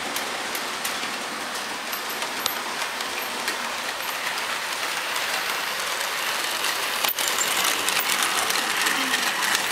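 Model steam locomotive and coaches running on the layout's track: an even rushing whir of the small electric motor and the wheels on the rails, with faint ticks. It gets louder about seven seconds in as the locomotive passes close.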